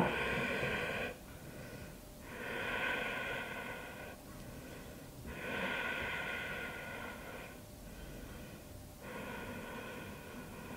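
A woman breathing slowly and audibly: four long breaths of about one to two seconds each, with short pauses between them.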